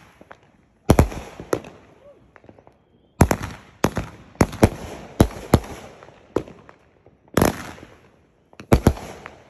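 Phantom Fireworks 'Eye Candy' 20-shot cake firing: about a dozen sharp bangs of shells launching and breaking, irregularly spaced, some in quick pairs and others a second or more apart.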